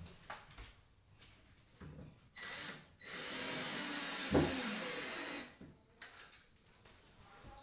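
Cordless drill-driver running: a short burst, then a steady run of about two and a half seconds, with a whining motor and a brief dip in pitch with a dull knock partway through.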